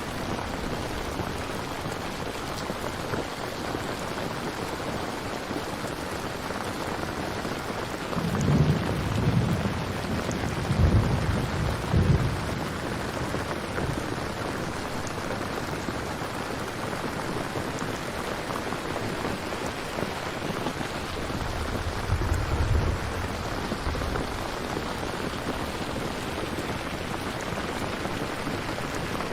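Steady rain falling, with low rolls of thunder about eight seconds in, continuing to about twelve seconds, and again around twenty-two seconds.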